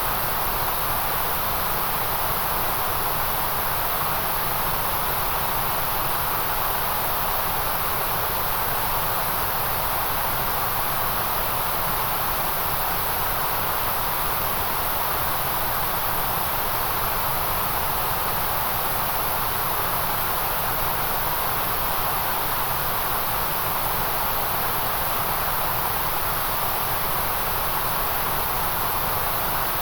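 Generated white noise: a steady, unbroken hiss that never changes, with most of its weight in a mid band and a very high band.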